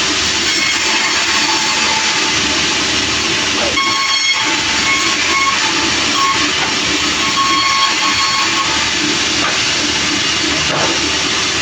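Sawmill blade cutting through a large log: a loud steady rushing saw noise, with a high ringing whine that comes and goes from about four to nine seconds in.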